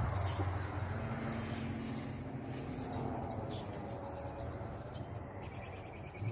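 A pit bull sniffing along the ground over a low steady hum, with a rapid high chirping coming in near the end.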